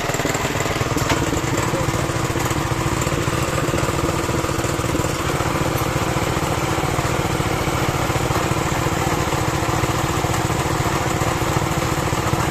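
Small water-pump engine running steadily at constant speed, driving a well-drilling rig through a car gearbox.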